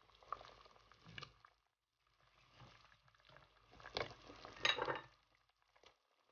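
Pork sinigang broth bubbling at a boil in a metal pot; about four seconds in, a few splashes and clatter as sliced radish is dropped in by hand.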